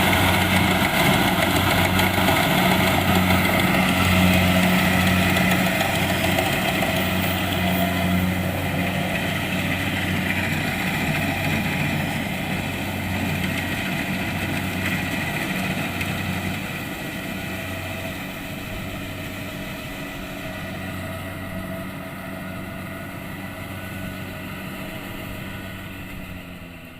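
Kubota DC-70 Plus rice combine harvester's diesel engine running steadily with its threshing machinery, a constant hum that grows fainter over the second half and fades out at the end.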